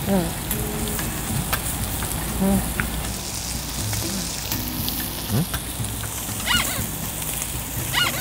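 Beef rib meat sizzling on a tabletop grill plate: a steady fizzing hiss dotted with small crackles and pops.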